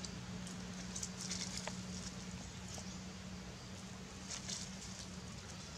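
Faint outdoor ambience: a steady low hum with scattered soft rustles and crackles, like dry leaf litter being disturbed, about a second in and again past the four-second mark.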